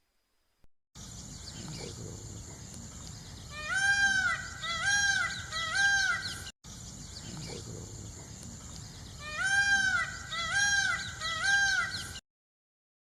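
An animal calling: three short calls about a second apart, each rising then falling in pitch, over a steady background hiss. The same sequence plays twice.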